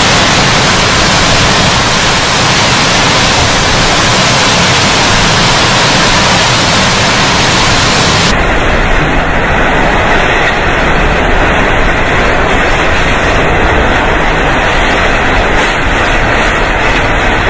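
Hurricane-force wind and heavy rain: a loud, steady rushing noise that changes in tone about eight seconds in.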